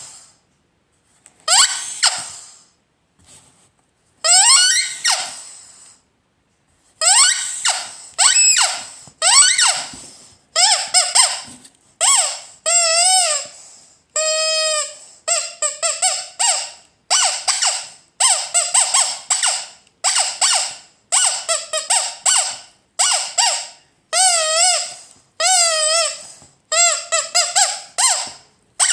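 Vintage Ledraplastic rubber squeaky toy squeezed over and over, each squeeze giving a high, whistling squeak that wobbles up and down in pitch. A few spaced squeezes at first, then a quick steady run of squeaks.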